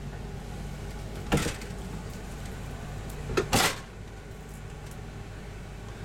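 A motorhome's 6.8L V10 gas engine idling with a steady low hum, heard from inside the coach. Two short knocks stand out, about a second and a half in and again about three and a half seconds in.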